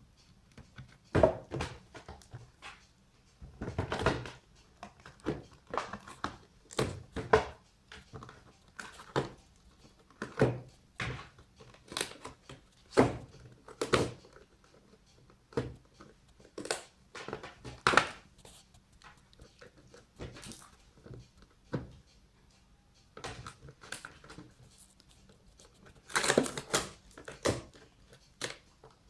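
A cat biting and tearing at the edge of a thin cardboard box: irregular crunches and rips of cardboard, with quiet gaps between them and a quick flurry of them near the end.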